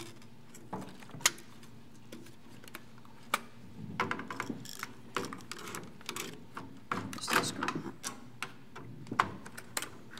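Irregular small clicks and taps of screwdrivers and fingers on the metal chassis and plastic fan housings of an LCD projector being taken apart, with a sharper click now and then.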